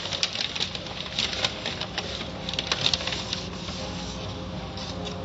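Automatic car wash's soft-cloth strips slapping and swishing over a vehicle's body in spraying water, with irregular sharp slaps over a steady hum of the wash machinery.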